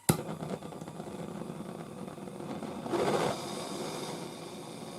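A MAPP gas torch lit with a sharp click, then its flame burning with a steady hiss as it heats a cracked joint for soldering. The hiss grows briefly louder about three seconds in.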